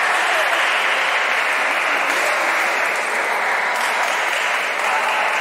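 Steady, dense clatter of a busy table tennis hall: many ping-pong balls clicking on tables and bats at once, blending into an even applause-like din.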